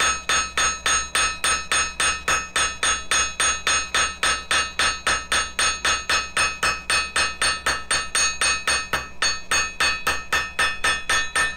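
Blacksmith's hand hammer striking hot mild steel on an anvil in a fast, even rhythm of about four blows a second, using the hammer's other end to punch decorative dimples into a hook's mounting point. Each blow rings metallically.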